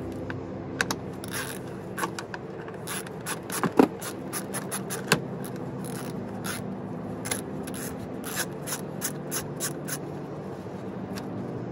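Ratchet wrench with a 7 mm socket clicking in short, irregular runs as it backs out small bolts holding a plastic bumper cover to the fender liner, with a couple of sharper knocks around four to five seconds in.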